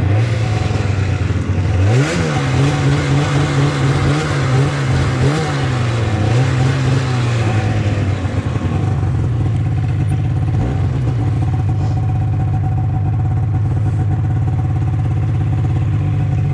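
Snowmobile engine revving under way: its pitch climbs sharply about two seconds in and rises and falls for several seconds. It then settles into a steady lower run.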